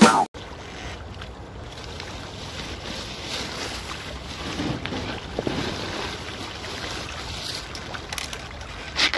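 Wind on the microphone over pond water, with small splashes as young patin (striped catfish) break the surface to take floating feed pellets. The clearest splashes come near the end.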